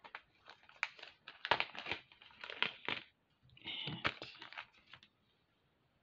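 Small plastic zip-lock bag crinkling as fingers work it open and take out a metal jewellery clasp: a run of short rustles that stop about five seconds in.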